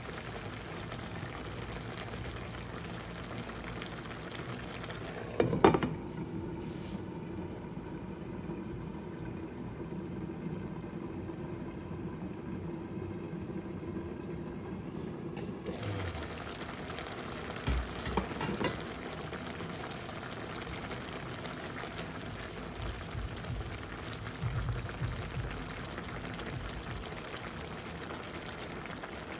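Pork-and-vegetable stew simmering in a pan, a steady bubbling. A clatter comes about six seconds in as the glass lid goes on, and the bubbling sounds muffled under it. It turns clear and bright again suddenly after about sixteen seconds when the lid comes off, with a few light knocks soon after.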